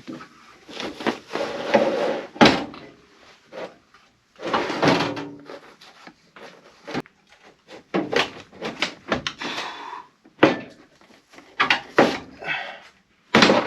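Sheet-metal scraping, rattling and sharp knocks as a furnace's metal panel lip and parts are worked loose, in irregular bursts with the loudest knocks about two and a half seconds in and near the end.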